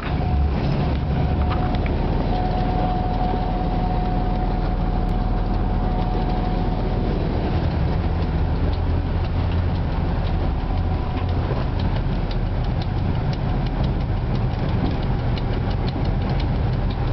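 2M62 diesel locomotive's two-stroke V12 diesel engine running with a steady low drone, heard from inside the cab.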